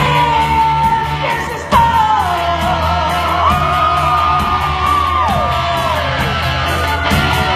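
A live rock band with drums, bass, guitar and keys playing under a singer's loud, yelled vocal. Long held notes slide up and down over a steady bass line.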